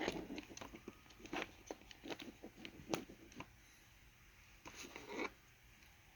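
Hands handling the plastic parts of Audio-Technica ATH-M50x headphones during a hinge repair: scattered small clicks, taps and rustles for about five seconds, then stopping.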